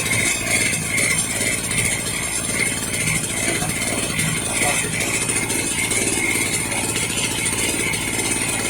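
Small portable generator's engine running steadily with no load on it yet, freshly revived after years of sitting.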